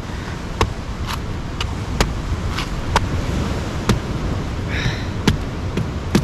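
Machete chopping the husk of a green coconut: about ten sharp strikes spaced irregularly, roughly every half second to second, over a steady rush of surf and wind.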